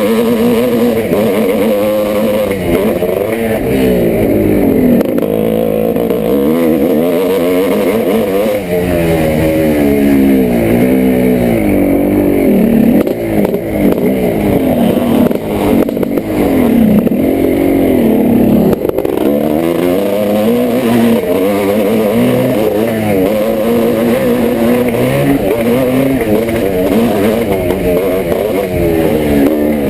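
1986 Yamaha YZ490's single-cylinder two-stroke engine under race load, revving up and falling back again and again as the rider works the throttle and gears around a motocross track.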